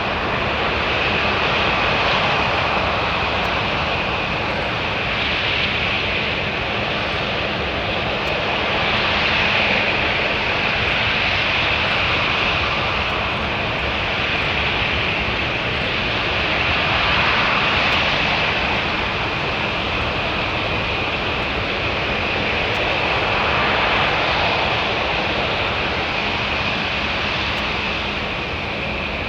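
Jet airliner engines running steadily, a continuous noise with a high whine, swelling and easing a little every several seconds.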